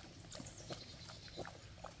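A sow and her piglets eating, with faint grunts and many short chewing and snuffling noises in quick, irregular succession.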